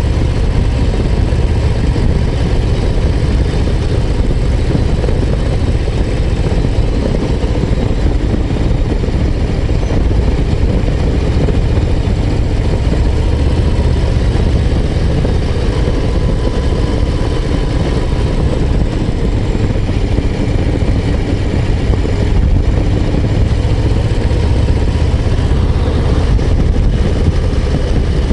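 Harley-Davidson Low Rider ST's Milwaukee-Eight 117 V-twin running steadily under way, with no big changes in speed.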